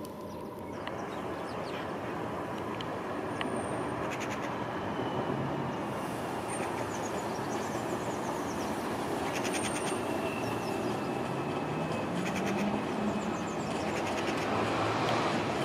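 Alstom Citadis Dualis tram-train, two units coupled, running past on the rails with a steady rumble that grows louder toward the end. Two short runs of rapid clicking come about four and ten seconds in.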